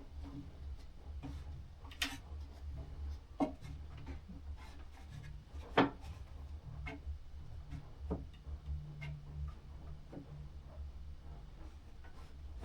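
Scattered light clicks and knocks of handling at a miter saw with its motor off, as a scrap-wood board is set in place, the loudest knock about six seconds in, over a low rumble.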